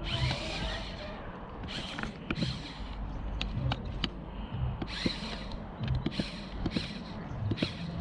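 Lego RC crawler's small electric motors and plastic gears whirring in short bursts as it is driven, with scattered sharp clicks and knocks from the model moving over the ground.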